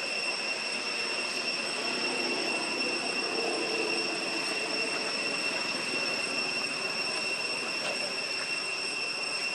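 Steady, high-pitched drone of insects, two shrill tones held without a break.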